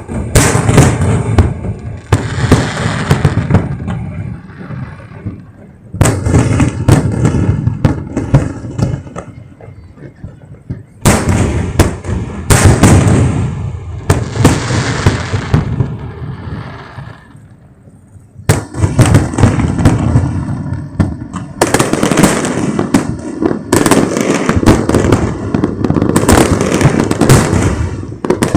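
Fireworks display at close range: rapid volleys of loud bangs and crackling shells that come in waves, each dying away before the next, with a short lull about two-thirds of the way through.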